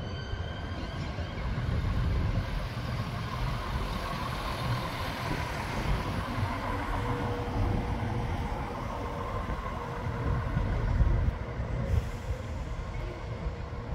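Diesel train running at the station platform, a steady low rumble with a faint steady whine through the middle.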